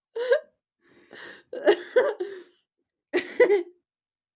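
A person coughing in three short bouts, with pauses between them.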